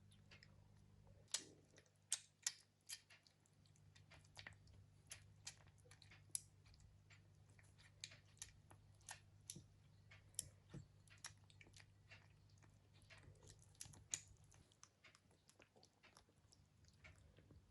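A tiny rescued kitten eating: a quiet run of small, irregular chewing clicks, one or two a second.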